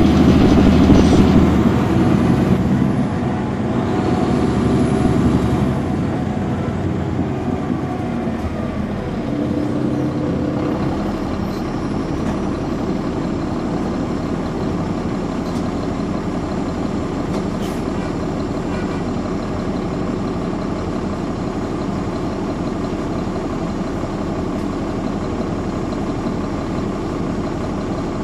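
Transit bus's Caterpillar C13 ACERT diesel engine running, loudest over the first few seconds and then settling to a steady, lower sound from about six seconds in.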